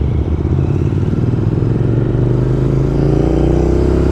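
Motorcycle engine with a loud exhaust running at low revs, its pitch climbing steadily from about three seconds in as the revs rise.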